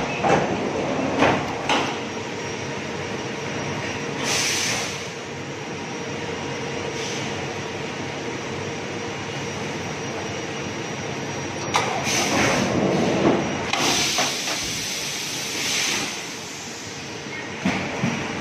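Slide-way high frequency plastic welding machine running with a steady hum, its welding tray rolling along the slide rails several times with a rumbling rush, longest and loudest from about two-thirds of the way through.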